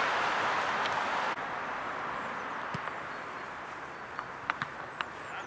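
Outdoor football-pitch ambience: a steady hiss that drops off abruptly about a second in, then a few sharp knocks near the end.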